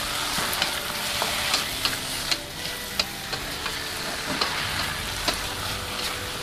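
Broccoli, carrots, mushrooms and egg tofu sizzling in oil in a wok while a wooden spatula stirs and tosses them, with many short knocks and scrapes of the spatula against the wok.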